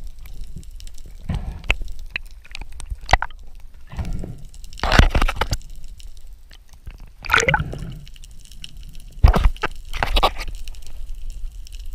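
Sea water sloshing and gurgling around the camera, with several louder splashes from about five seconds in as a speared mahi-mahi thrashes on the spear and is handled by the spearfisher.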